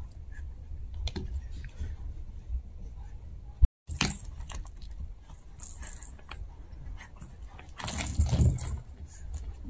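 Two Chihuahua puppies playing with plush, rope and rubber toys: scattered small clicks, rattles and rustles as the toys are mouthed and tugged. There is a louder burst of rustling about eight seconds in as a toy is shaken.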